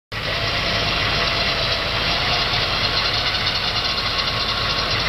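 An engine running steadily, with a fast, even clatter over a low rumble.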